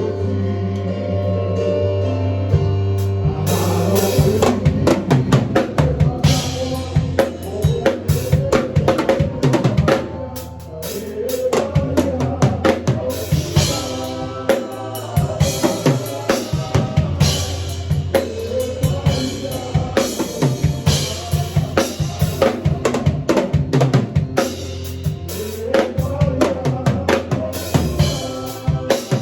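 Drum kit played with bass drum, snare and rimshots in a busy groove over held low chords from another instrument; the chords sound alone at first and the drums come in about three and a half seconds in.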